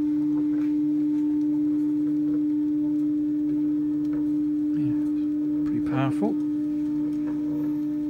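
Stepper motor turning a ball screw slowly on a CNC gantry axis, a steady single-pitched hum as the carriage creeps along its linear rails; it is running smoothly. About six seconds in there is a brief wavering sound over the hum.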